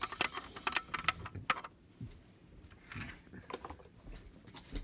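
Plastic toys being handled, with a quick run of clicks and clacks in the first second and a half, then a few scattered knocks.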